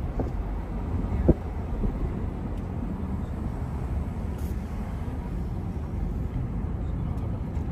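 Car driving, heard from inside the cabin: a steady low rumble of engine and road noise, with a single sharp knock about a second in.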